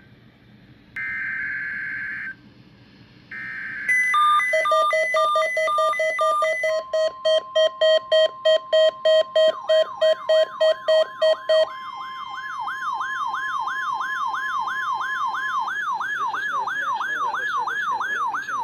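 NOAA Weather Radio test signal: two short screeching bursts of SAME digital header data, then electronic alert tones. These are stepped and fast-pulsing beeps, with the steady 1050 Hz Weather Alert Tone held for about nine seconds from about a quarter of the way in. A rapidly rising-and-falling warbling siren tone, typical of an activated weather alert receiver's alarm, overlaps it and runs on to the end.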